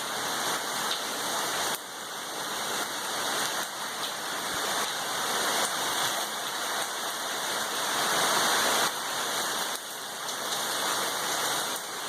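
Heavy rain pouring down in a windstorm: a dense, steady rush that swells with the gusts and drops off abruptly several times.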